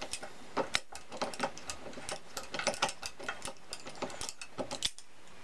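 Steel locking pliers clicking and clacking on a broken screw stub in a cast-iron vice jaw: a string of sharp, irregular metal clicks that stops about five seconds in.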